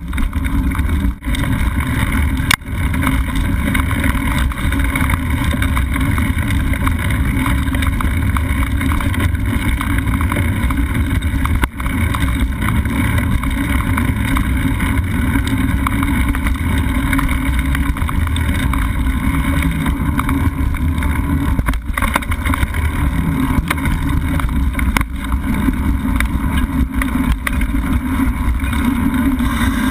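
Steady rumble and rattle of a mountain bike rolling over a dirt singletrack, picked up by a camera mounted on the bike.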